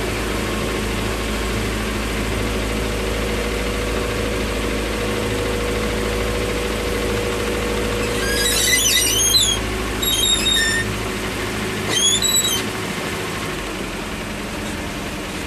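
Boat engine running steadily under way. Starting about eight seconds in, the boat's steering squeaks in three short runs of high-pitched squeals.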